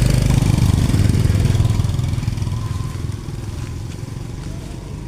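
A small engine running, loud at first, then fading away over the last few seconds.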